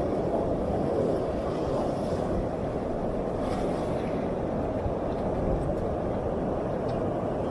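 Ocean surf breaking and washing up a sandy beach: a steady low rush of water with no single crash standing out.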